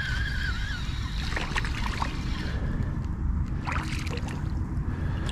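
Water sloshing and trickling over a steady low rumble, with a few short clicks.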